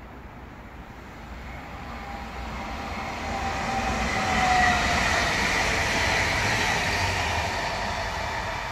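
Stadler FLIRT (Sm5) electric commuter train passing close by. Its rumble and wheel noise build to a peak about four and a half seconds in, with a faint whine that drops slightly in pitch as it goes by, then ease off gently as it recedes.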